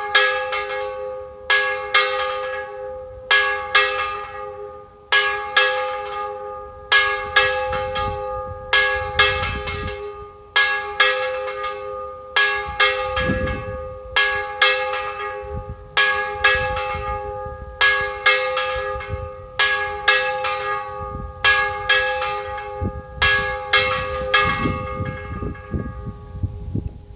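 Single church bell tolling, struck a little under once a second at an even pace, each stroke ringing on into the next. Near the end the strokes stop and the ring fades away.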